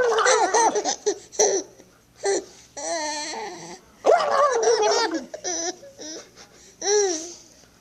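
Baby laughing and giggling in several bursts, with a wavering, drawn-out voice about three seconds in.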